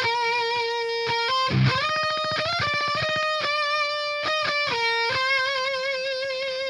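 Distorted electric guitar run through the Audio Assault Bulldozer amp-simulator plugin, playing a lead line of sustained single notes with wide vibrato. The notes are joined by slides, with a scraping slide up about one and a half seconds in.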